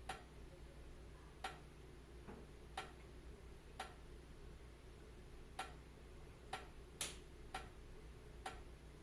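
Wood fire crackling: single sharp pops at uneven intervals, roughly one a second, with the strongest near the seven-second mark, over a faint steady low rumble.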